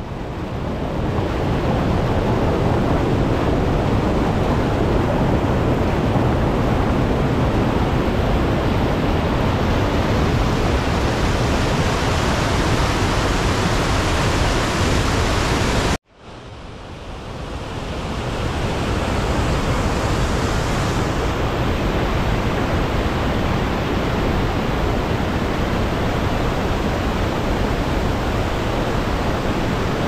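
Waterfall: a steady, loud rush of falling water. It cuts off suddenly about halfway through and fades back in over a couple of seconds.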